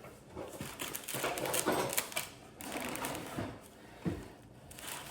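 Quick irregular clicks, rustling and light clattering of kitchen items being handled, with a short lull near the end.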